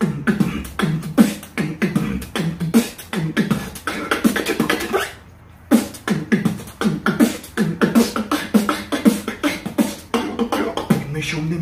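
Human beatboxing close into a microphone: a fast beat of mouth-made percussion, deep thumps mixed with sharp clicks and hisses, breaking off for about half a second around the middle.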